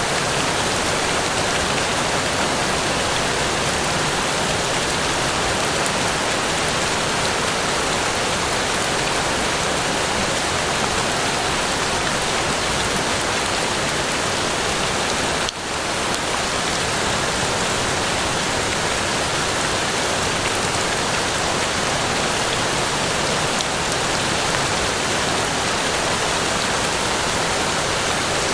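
Steady, dense rain falling, an even hiss of countless drops with no let-up, broken only by a brief dip in level about halfway through.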